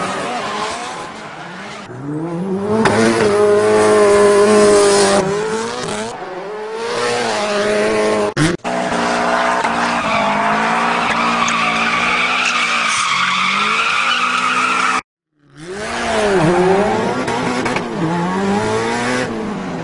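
Rally car engine revving up and down through the gears, with tyres skidding on loose ground, in several short pieces that cut off suddenly one after another.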